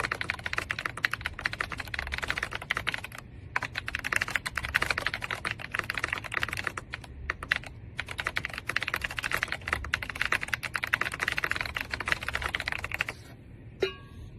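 Fast, continuous typing on a YUNZII B75 PRO gasket-mount mechanical keyboard, a dense run of keystrokes broken by two brief pauses. The typing stops a little over a second before the end, and a short rising tone follows.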